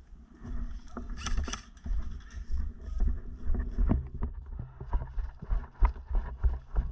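Footsteps at a walking-to-jogging pace, about two to three a second, with gear and clothing rustling and dull knocks on the microphone. There is a short burst of rustling about a second in.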